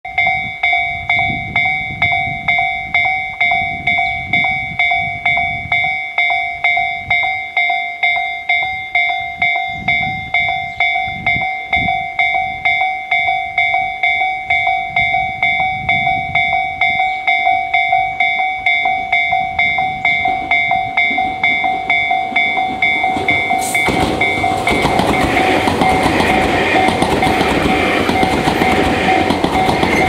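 Japanese railway level-crossing electronic warning bell (Tobu 'Tojo-type' alarm tone) ringing steadily at a little over two strikes a second. About 24 seconds in, a red-and-white Tobu Ryomo limited express train starts passing over the crossing, adding the loud rushing and clatter of its wheels on the rails under the bell.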